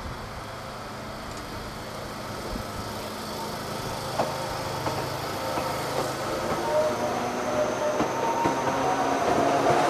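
Narrow-gauge electric train of the Yokkaichi Asunarou Railway pulling out of a station, its motor whine growing louder and rising slightly in pitch as it gathers speed, with a few sharp clicks from the wheels on the track.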